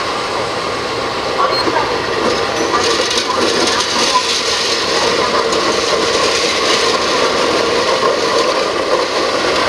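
CC 201 diesel-electric locomotive running steadily as it hauls passenger coaches slowly past, with its wheels rolling over the rails.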